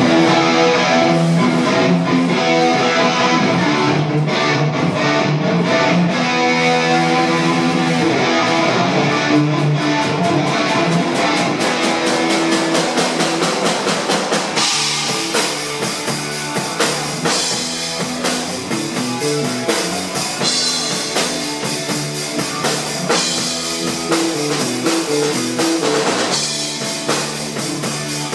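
Rock music with guitar and a drum kit; the drums come in more strongly about halfway through.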